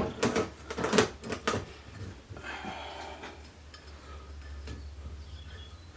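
Steel Allen keys clinking and rattling against each other as they are handled: several sharp metallic clinks in the first second and a half, then a short scrape and quieter fiddling.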